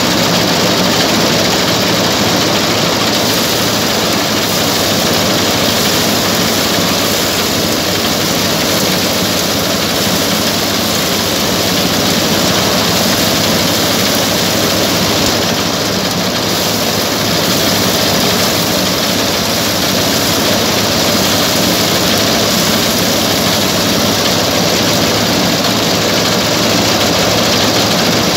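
Diesel-engined paddy thresher running steadily while threshing rice: a loud, even mechanical noise with a steady low engine hum underneath.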